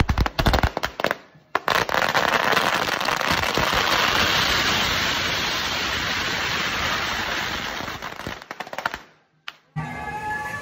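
A large heap of red string firecrackers going off: a few sharp bangs at first, then about seven seconds of dense, continuous rapid-fire crackling that thins out and stops. After a short break, music comes in near the end.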